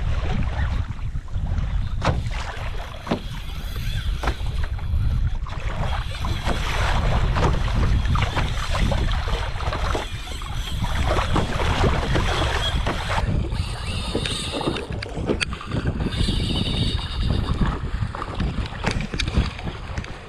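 Wind buffeting the microphone over the rush and slap of choppy sea water splashing against a kayak's hull as it moves through the swell.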